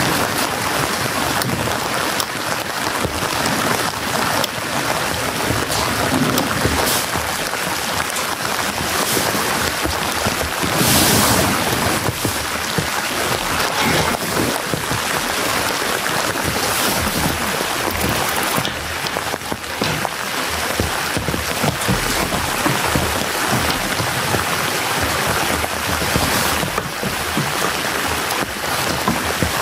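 Heavy rain falling steadily, with a dense patter of drops striking a surface, swelling briefly heavier about eleven seconds in.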